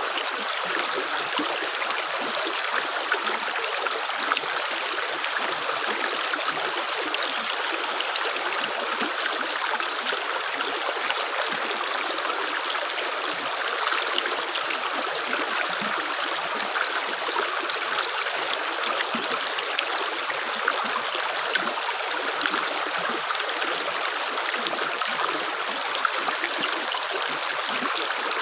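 Water running in a steady trickle, with many small splashes and drips.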